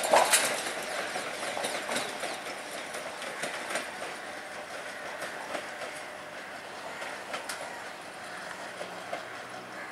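Sri Lanka Railways train running past on the tracks, its wheels knocking irregularly over the rail joints. The clatter is loudest at the start and slowly fades as the train moves away.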